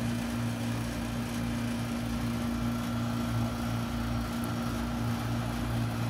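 Steady low machine hum with a constant drone beneath it, unchanging throughout.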